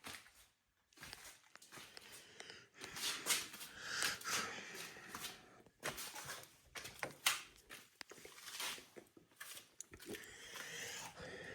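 Faint, scattered clicks and rustling noises with quiet gaps between them.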